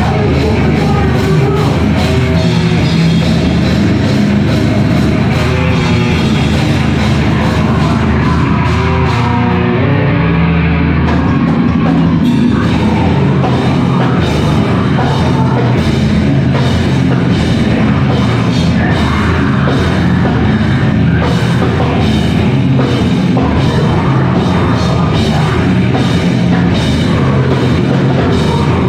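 A band playing heavy rock live, loud, with drum kit. The cymbals drop out for about two seconds around ten seconds in, then the full band comes back in with a steady pounding beat.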